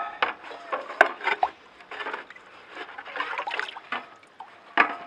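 Wet cast iron skillet being scrubbed by hand over a bucket of rinse water, in irregular rubbing strokes with water trickling and sloshing off the pan. A couple of sharp clicks come about a second in and near the end.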